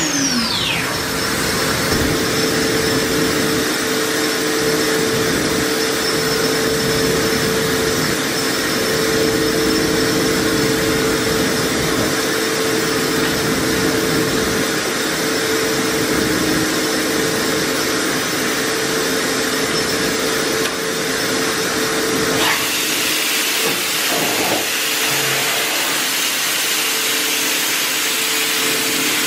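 Okuma MILLAC 800VH 5-axis CNC machining center running, with a falling whine at the very start as the spindle slows, then a steady machine hum and hiss carrying a constant mid-pitched tone. About 22 seconds in, the low hum drops away and the hiss turns brighter.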